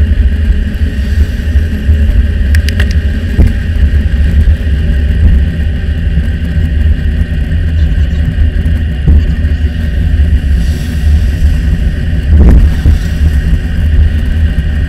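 Low, steady rumble of wind and road noise on a bicycle-mounted camera, mixed with the sound of motor traffic passing in the next lanes. A few light rattles come about two and a half seconds in, and the rumble swells briefly near the end.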